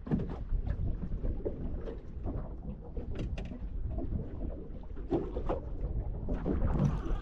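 Ambience on a small fishing boat: wind rumbling on the microphone, with scattered small knocks and clatter on the boat.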